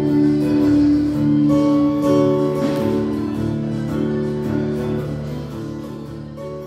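Acoustic guitar played live, held chords ringing and changing every second or so, then dying away near the end.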